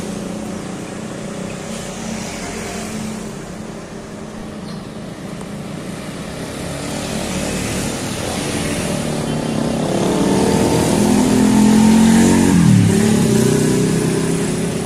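Road traffic with buses and motorcycles: engines run steadily, and one engine revs up, louder toward a peak about twelve seconds in, where its pitch dips sharply and climbs again, then eases off near the end.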